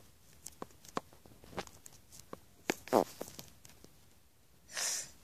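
Handling noise from a phone camera being set in place: scattered light taps and knocks, the loudest about three seconds in, then a short rustle near the end.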